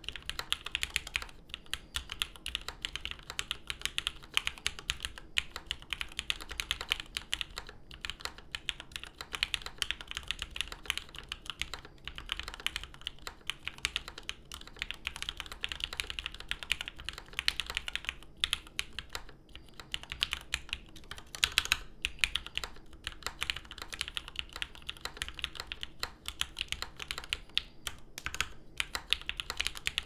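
Steady typing on a Praxis IM mechanical keyboard with lubed Gateron X linear switches, PBT keycaps and a top-mounted aluminium plate with flex cuts: a dense stream of crisp key clacks, broken now and then by short pauses.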